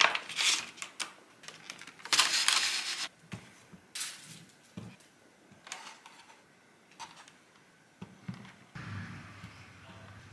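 Plastic clamshell fruit boxes and whole fruit being handled and set down on a wooden tray: scattered soft knocks and clicks, with a longer crackle of plastic about two seconds in.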